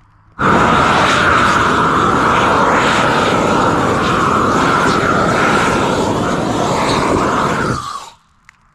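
Propane weed-burner torch on a long wand firing: a loud, steady roar of the gas flame that starts suddenly about half a second in and cuts off suddenly near the end.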